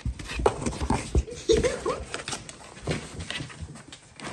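A Bengal cat scrambling inside a cardboard box: repeated scratching, rustling and knocks against the cardboard, with a short voice-like sound about one and a half seconds in.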